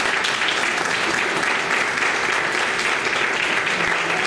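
Small audience applauding, a dense steady clapping that holds at an even level.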